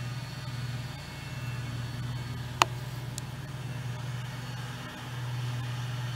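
Steady low mechanical hum, with one sharp click about two and a half seconds in and a faint tick just after.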